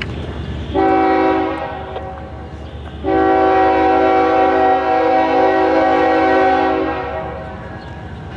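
CSX freight diesel locomotive's multi-chime air horn sounding a short blast, then a long blast of about four seconds, over the low rumble of the approaching train. This is the closing short-then-long of the grade-crossing warning, as the locomotive reaches the crossing.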